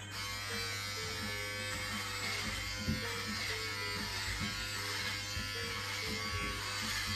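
Corded electric hair clippers buzzing steadily as they cut short hair, with music playing in the background.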